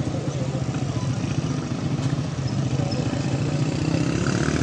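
Motorcycle engine running steadily close by, a low, fast pulsing, amid street traffic.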